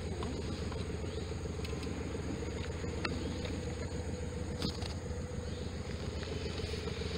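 Outboard motor of a motor canoe running at a steady cruising speed, an even hum with a few faint clicks.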